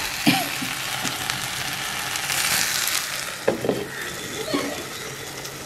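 Eggplant, tomato and onion sizzling in oil in a clay pot, with a sharp knock just after the start. About three and a half seconds in there are a few clay-on-clay knocks as the clay lid goes on, and the sizzle turns muffled and quieter.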